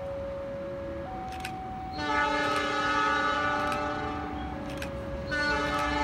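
Diesel locomotive's multi-tone horn sounding twice: a blast of about two seconds starting a third of the way in, then a second blast beginning near the end.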